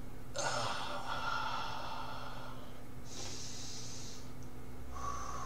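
A man breathing loudly and deliberately in and out through a held yoga pose: a long breath, a shorter, hissier one about three seconds in, and another near the end with a faint whistle in it.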